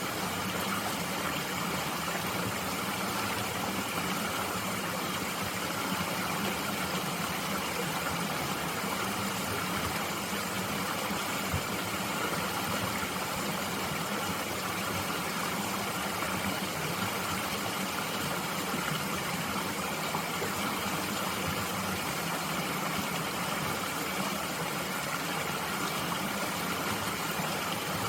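Mountain stream flowing, a steady, even rush of water with no breaks.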